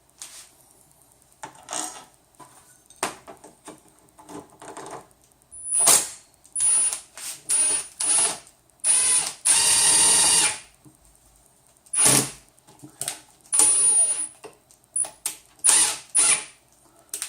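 Power screwdriver driving small screws in a series of short bursts, the longest about a second and a half, with a few handling clicks before the first.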